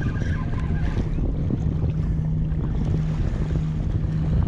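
Wind buffeting the microphone, with a steady low hum underneath that breaks off briefly a few times.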